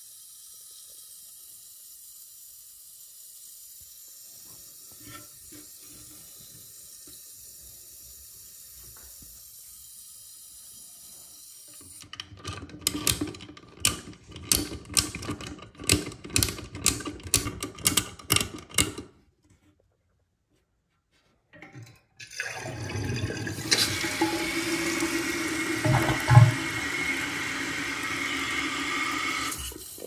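Water in a toilet tank: a faint hiss at first, then rhythmic splashing at about two a second as a hand works in the tank water. After a short pause, a steady rush of water as the fill valve refills the tank, with one knock partway through.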